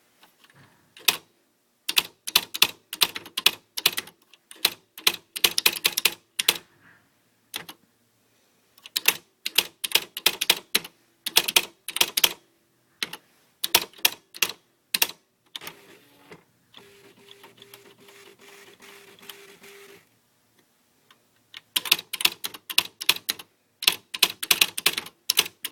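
Smith Corona XL 1000 electric typewriter typing in quick runs of sharp keystrikes, with pauses between. Near the middle the typing stops for a few seconds of quieter steady machine hum with a regular pulsing tone, about three pulses a second, before typing resumes.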